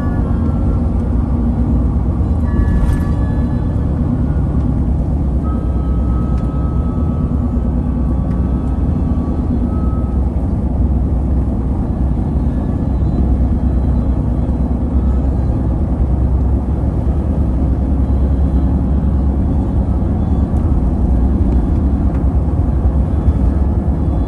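A car driving at a steady pace: a constant low rumble of engine and tyre noise heard from inside the cabin, with a single faint click about three seconds in.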